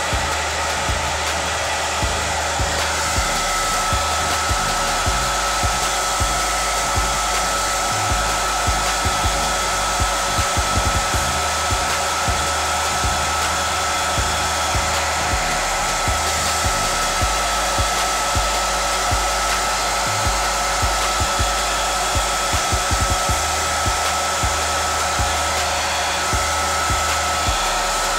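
Handheld hair dryer blowing steadily, aimed at the hairline of a lace-front wig to dry it and lay it flat. A thin steady whine rides over the rush of air from about three seconds in.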